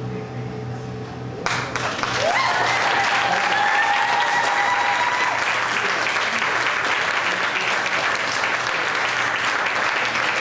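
Music stops about a second and a half in and the audience breaks into applause, with one long, high cheer rising over the clapping.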